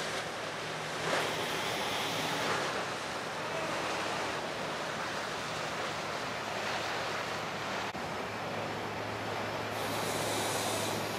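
Choppy river water splashing and rushing, with wind on the microphone and a low steady engine hum underneath.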